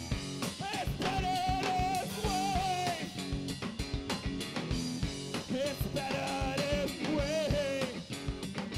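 A rock band playing live on drum kit and guitar, with a steady drum beat. Two long, wavering held melody phrases sit on top, one early and one past the middle.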